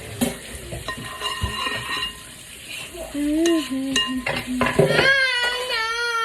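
Dishes and utensils clinking and knocking in a kitchen, then a young child starts crying about five seconds in, one long wavering wail.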